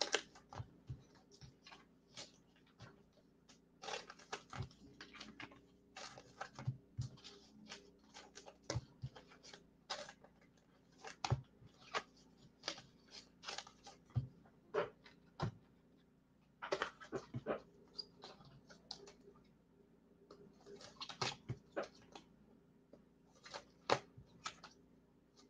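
Faint, irregular clicks, taps and rustles of trading cards being handled and sorted into a hit recap, with a few short clusters of quick taps.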